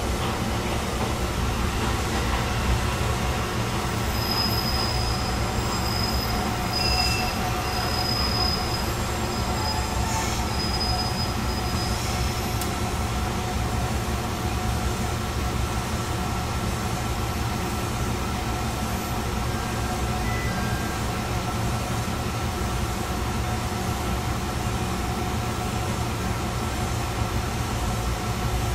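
Chizu Express HOT3500 diesel railcar running along the line, heard from inside at the front: a steady engine and track rumble. A thin high-pitched squeal comes and goes for several seconds starting a few seconds in.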